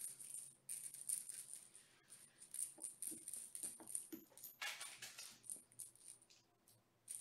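Orange plastic cat toy with a rattle inside, shaken by hand in quick, repeated bursts of dry, high rattling, with a short lull near the end.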